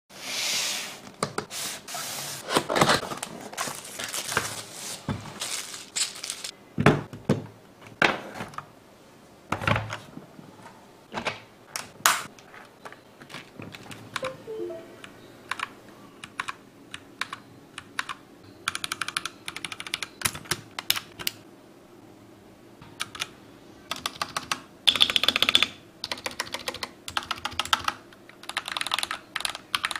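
Royal Kludge RK98 hot-swap mechanical keyboard being typed on, the keys clacking in short, fast bursts through the second half. Scattered single knocks and clicks come in the first half.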